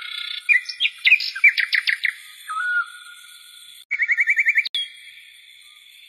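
Bird-like chirps and whistles over a steady high-pitched tone. There is a flurry of quick chirps in the first two seconds, a short falling whistle about two and a half seconds in, and a fast trill of about ten notes a second around four seconds in.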